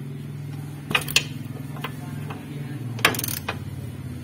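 Metal clinks and taps of a socket wrench working the nuts of a lower suspension ball joint: a couple of sharp clinks about a second in and a longer clatter around three seconds in, over a steady low hum.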